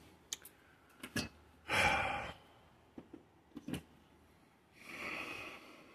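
A man breathing out hard, a sharp exhale about two seconds in and a softer sigh near the end, with a few light clicks and knocks of handling in between.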